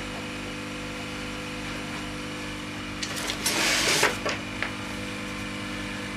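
Steady electrical hum of workbench equipment, broken about three seconds in by a brief rustle and crackle of a paper sheet being handled: a printed schematic picked up.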